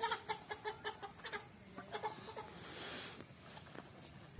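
Chicken clucking: a quick, uneven run of short clucks over the first two seconds or so. A soft rustle follows, from the cast net being gathered up.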